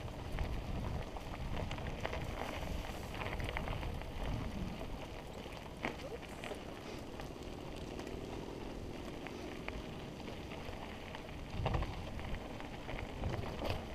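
Mountain bike rolling along a dirt singletrack, heard from a helmet-mounted camera: a steady rumble of tyres and wind on the microphone, with scattered clicks and knocks as the bike rattles over bumps.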